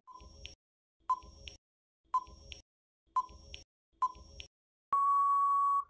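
Quiz countdown timer sound effect: five short beeps, one a second, then a single longer steady beep of about a second as the countdown runs out.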